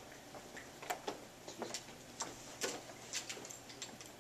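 Scattered light clicks and taps of equipment being handled, about ten, spaced unevenly, over a low room hiss.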